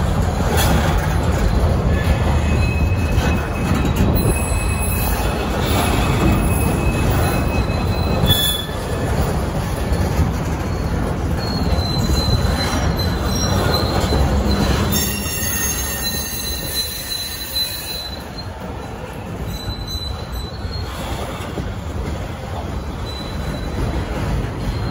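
Freight train of container flatcars rolling past: a steady low rumble of wheels on the rails, with thin high wheel squeals coming and going. The squeals are strongest a little past the middle. There is one sharp click about a third of the way in.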